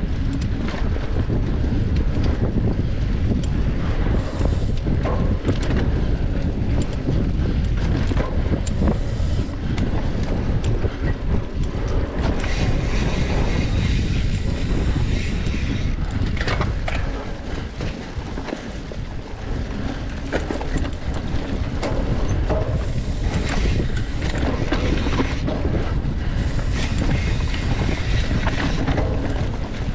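Wind buffeting the microphone of a camera carried on a moving bicycle, a steady low rumble with frequent short rattles and clicks from the bike over rough ground.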